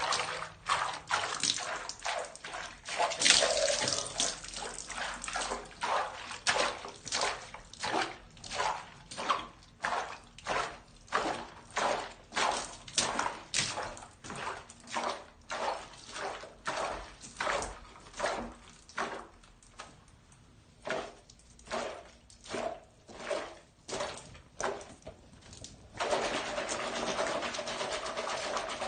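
Water in a bathtub splashing in a steady rhythm, about one or two splashes a second. Near the end the splashes stop and give way to a steady rush of water.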